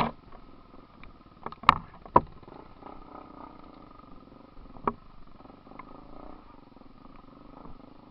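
Off-road vehicle's engine running steadily on a trail, with several sharp knocks and clunks, the loudest right at the start and two about two seconds in.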